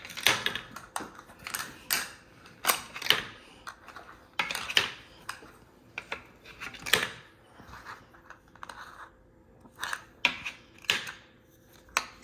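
Plastic checkers of a giant four-in-a-row game clacking as they drop into the board's slots and are handled on a stone countertop: an irregular string of sharp clicks and knocks, some in quick clusters.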